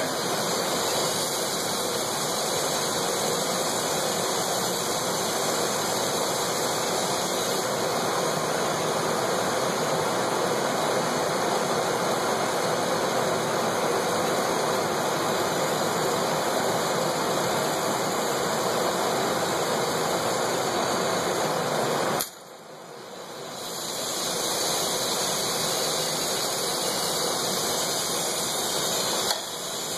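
Glassblower's hand torch burning with a steady hissing rush as it heats glass on a glass lathe. About two-thirds of the way through the sound drops sharply, then swells back over a couple of seconds.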